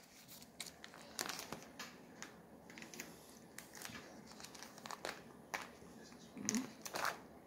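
Clear plastic binder pocket pages crinkling and rustling as trading cards are handled over the open binder: faint, scattered crackles and clicks.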